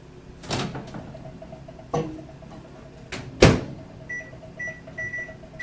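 Microwave oven being loaded and set: the door knocks open, the plate clicks inside, and the door shuts with a loud thump. Then a series of short keypad beeps sounds as the cooking time is entered, over a faint steady hum.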